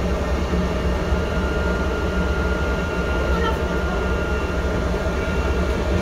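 Steady rumble of a bus running, engine and road noise heard from inside the passenger cabin, with a faint high tone from about a second in that fades out a couple of seconds later.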